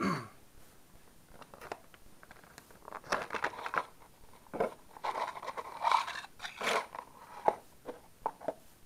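Clear plastic packaging case crackling and clicking as it is pulled off a micro quadcopter and handled. It comes in a few bursts about three seconds in and again around five to seven seconds, with several sharp clicks near the end.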